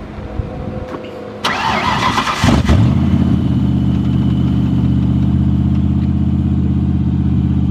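Ford Mustang GT's V8 being cranked by the starter for about a second, catching with a quick rev, then settling into a steady idle.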